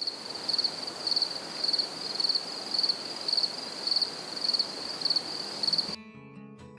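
Insects chirping outdoors: a high-pitched, pulsing chorus about two pulses a second over a steady hiss, cutting off abruptly near the end.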